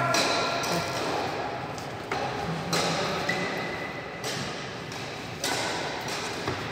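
Badminton rackets striking the shuttlecock in a rally, a sharp hit every second or so, each echoing in a large hall.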